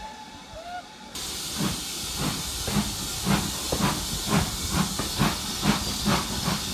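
Steam locomotive pulling away: a steady steam hiss sets in sharply about a second in, followed by rhythmic exhaust chuffs at roughly two a second that gradually quicken as the train gathers speed. Heard from aboard a carriage.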